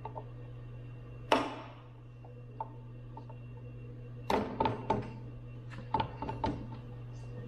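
A sharp knock about a second in, then two quick clusters of knocks and clunks near the middle and later on, over a steady low hum.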